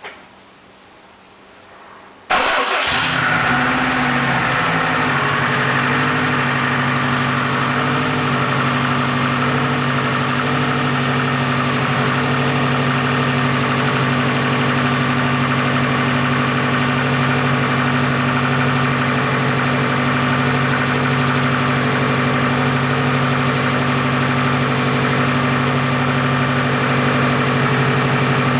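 Freshly built Subaru EJ257 2.5-litre turbocharged flat-four engine in a 2002 WRX starting on its first start ever, catching suddenly about two seconds in. It then idles steadily, its pitch settling over the first few seconds.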